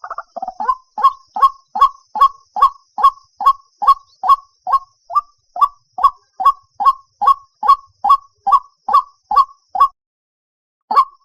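White-breasted waterhen calling an even, rapid series of short notes, about two or three a second. The calls break off for about a second near the end, then start again.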